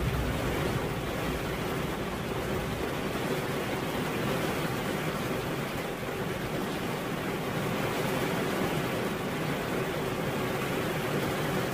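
Steady rain falling, an even hiss that holds without breaks.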